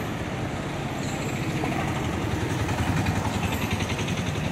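Lorry's diesel engine running steadily with a low rumble.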